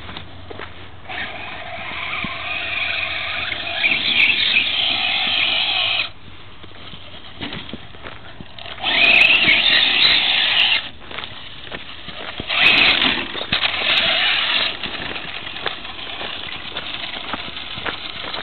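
Brushless electric motor of a Traxxas Slash VXL radio-controlled truck whining under throttle in three long bursts, its tyres running over loose gravel and dirt, with quieter coasting between.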